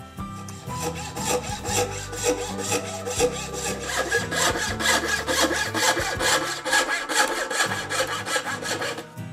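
Bow saw cutting a curve through glued-up pallet-wood boards, rasping in quick, even back-and-forth strokes.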